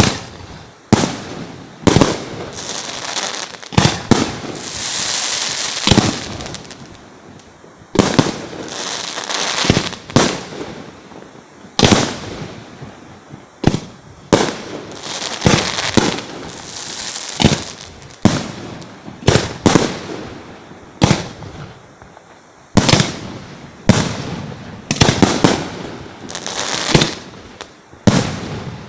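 Fireworks display close overhead: aerial shells bursting one after another in quick, irregular succession as loud sharp bangs, with stretches of crackling and hissing between some of the bursts.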